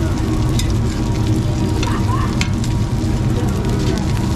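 Oil sizzling and crackling in a deep fryer, with many small pops, over a steady low rumble.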